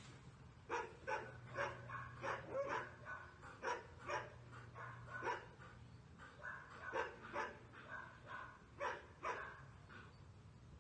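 Greyhound puppy barking excitedly, a string of short sharp barks with a brief pause about six seconds in.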